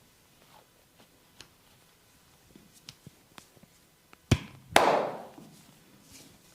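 Barber's head massage: faint light taps, then two loud sharp cracks or slaps about half a second apart, a little over four seconds in, the second trailing off in a short rustle.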